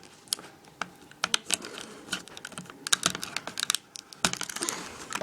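A small knife blade cutting into stiff plastic packaging: a run of irregular sharp clicks and crackles of the plastic.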